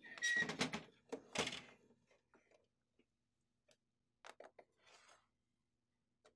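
HP LaserJet Pro MFP M127fn printer being turned around on a wooden tabletop: a scraping slide with several knocks in the first two seconds, then a few light clicks and a short soft rustle.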